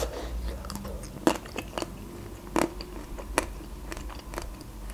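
Biting into and chewing a chocolate-coated Magnum ice cream bar, the chocolate shell cracking in a scattering of small sharp crunches.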